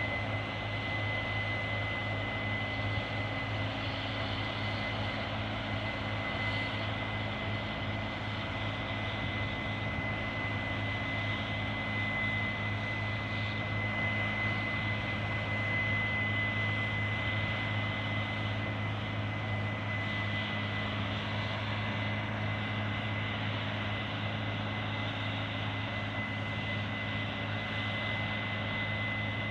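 Heavy harvest machinery running steadily: a low engine drone with a thin, steady high-pitched whine over it.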